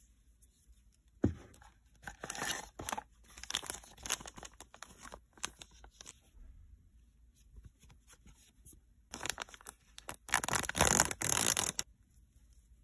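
A foil blind-box bag crinkling and rustling in gloved hands. A sharp click comes about a second in, then scattered bursts of crinkling, and a longer, louder stretch of crinkling near the end.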